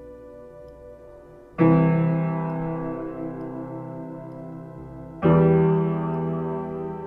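Background music: two loud chords, one struck about a second and a half in and another about five seconds in, each ringing on and slowly fading.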